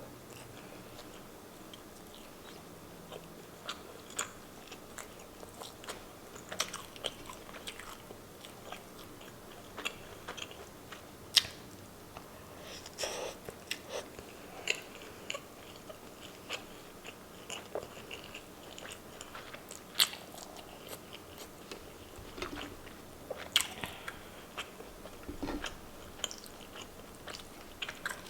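A person chewing and biting food close to the microphone: soft wet mouth sounds with irregular clicks and smacks, a few sharper, crunchier ones standing out.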